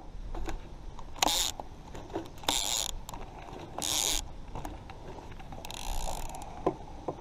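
Fishing reel being worked in short spurts: three short mechanical whirs about a second and a half apart, then a fainter one, with a few light clicks. The angler thinks the reel needs a little oil.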